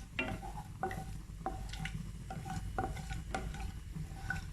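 A spoon stirring whole spices frying in coconut oil in a pan, knocking against the pan about twice a second over a faint sizzle.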